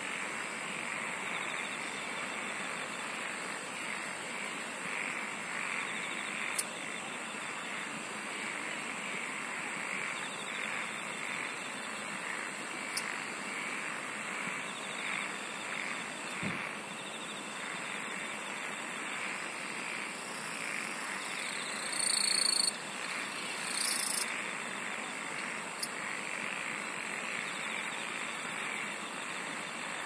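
Dense evening chorus of frogs and insects calling in a rice paddy, a steady pulsing din. High, fine insect trills of about two seconds each rise above it four times, and a couple of louder high calls stand out about three-quarters of the way in.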